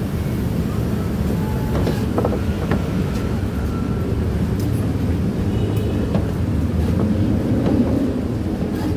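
Steady low rumble of a standing diesel train, its Hitachi diesel-electric locomotive running at idle, with a few faint clicks.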